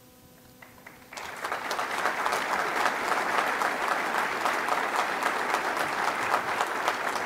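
Audience applauding. After about a second of hush the clapping starts suddenly and keeps up as a dense, steady patter.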